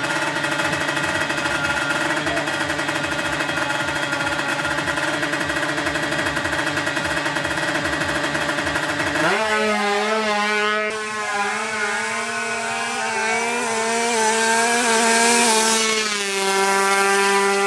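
Tuned Kawasaki Ninja two-stroke single, bored to 155 cc, running steadily. About halfway through the revs jump up, and the pitch wavers up and down as the throttle is worked.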